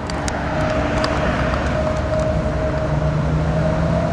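A steady, engine-like drone with a constant hum, joined by a lower hum about halfway through, and a few faint clicks.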